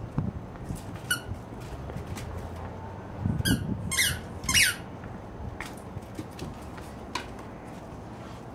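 Squeaky tennis ball squeaking in short, falling-pitch chirps as a puppy bites down on it. There are three quick squeaks in a row about halfway through, with fainter single squeaks before and after.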